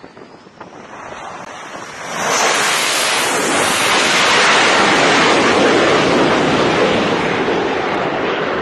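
Fighter jet's engines at full launch power as it climbs away from the carrier: a loud, even rushing noise that swells sharply about two seconds in, holds, and cuts off suddenly at the end.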